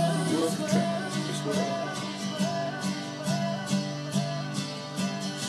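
Instrumental passage of a produced song: a plucked guitar plays over bass notes, with a short melodic figure repeating about once a second.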